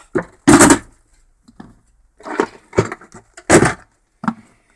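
A plastic storage box full of salvaged motors and small parts being handled and put away: several sharp knocks and rattles of the box and its contents. The loudest come about half a second in and about three and a half seconds in.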